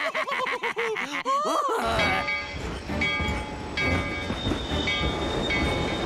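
Cartoon laughter in quick rhythmic pulses for about the first two seconds. Then a steam train sound effect: a steady low rumble with long held high whistle tones as the train pulls away.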